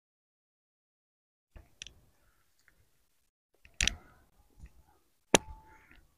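Footsteps crunching on dry pine needles, grass and rock on a steep forest slope: a few scattered crunches and knocks, with one sharp click about five seconds in, set between stretches of dead silence.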